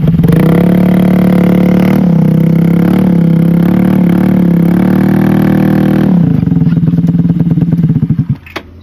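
Motorcycle engine through an SC Project exhaust with its silencer insert removed, held at high revs for about six seconds with small rises and dips. The revs then fall away and the sound stops abruptly near the end, followed by a single click.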